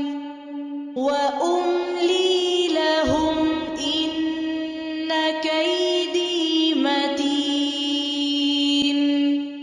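Quran recitation in melodic tajweed style by a solo voice: long held notes with slow, ornamented pitch turns. One phrase ends and the next begins about a second in.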